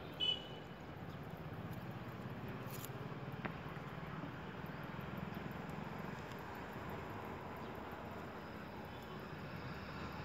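Steady low background noise, with one short high chirp about a quarter second in and a faint tick a few seconds later.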